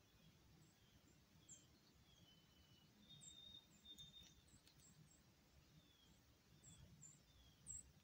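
Faint chirping of small songbirds: short high chirps repeating every second or so, with two brief held whistled notes about halfway through, over a low outdoor hiss.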